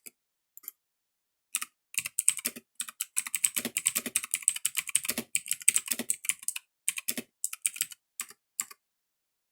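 Typing on a Motospeed GK89 mechanical keyboard with clicky Otemu Blue switches: a fast run of key clicks that starts about a second and a half in, is densest in the middle and stops shortly before the end.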